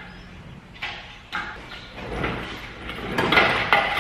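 Metal clanks, then a longer, louder rolling and scraping noise near the end, from a folding shop engine crane lifting an engine off a pickup bed.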